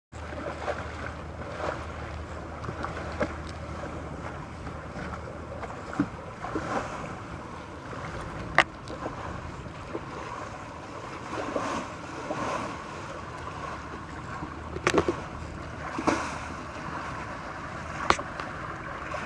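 Water rushing and splashing past the hulls of a sailing trimaran under way in a fresh breeze, with wind buffeting the microphone. A few sharp clicks stand out from the steady wash.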